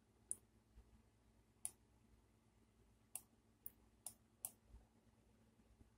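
Computer mouse clicking: about six sharp, separate clicks, one near the start, one at under two seconds and four close together past the midpoint, over a faint steady hum.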